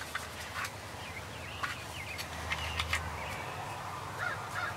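Wild turkeys calling: short, faint, pitch-bending notes come off and on, with a quick string of them near the end.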